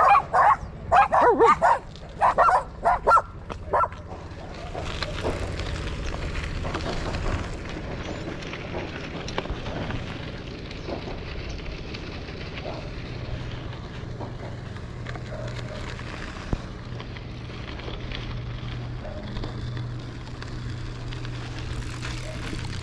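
Several small dogs barking and yapping in quick, loud bursts for about the first four seconds. After that comes a steady rush of wind and bicycle tyres rolling on a dirt road.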